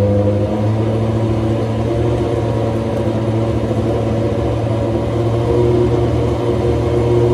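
Sport motorcycle engine running steadily at the drag-strip start line, its pitch holding level.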